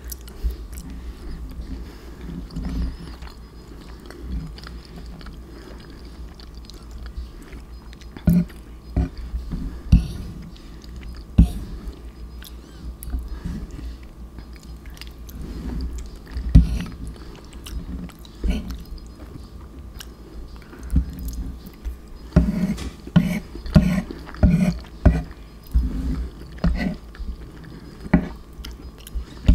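Close-miked chewing of macaroni and cheese: irregular wet mouth clicks and bites, coming thicker about three-quarters of the way in.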